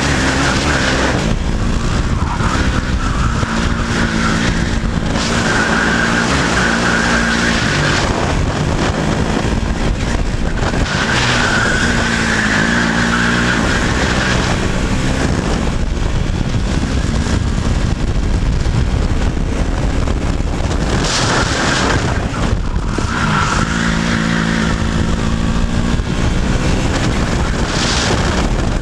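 Racing kart's two-stroke engine heard onboard at race pace, revving up and falling back again and again as the kart accelerates out of corners and brakes into them.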